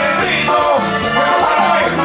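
Live band music played loud: an accordion with a man singing, over drums and bass.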